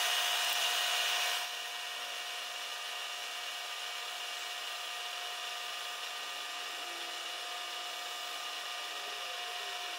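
Milling machine running with an end mill cutting the face of a small metal casting: a steady whine made of several steady tones. It is louder for about the first second and a half, then settles to an even level.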